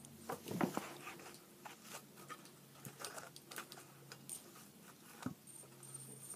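Faint handling sounds of a Captain America Shield fidget spinner being taken and worked in the hand: scattered small clicks and taps, the loudest in a cluster in the first second, over a low steady hum.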